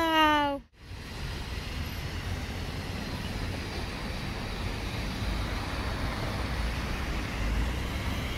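A high voice calls out in one long note falling in pitch, cut off about half a second in; then steady outdoor background noise with a low rumble.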